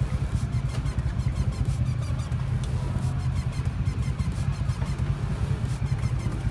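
Harley-Davidson V-twin motorcycle engine idling, a steady low rumble with quick, even pulses.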